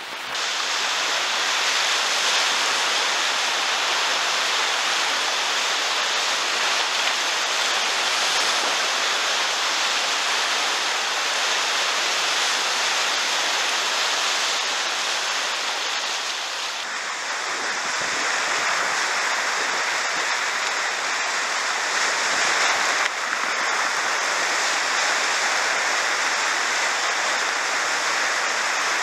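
Whitewater rapids rushing steadily around a kayak, heard close up at water level, with no break through the whole run.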